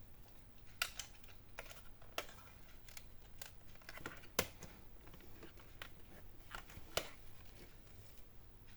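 Irregular sharp plastic clicks and knocks from an Asus X452E laptop's casing being handled and pressed into alignment, the loudest about four and a half seconds in.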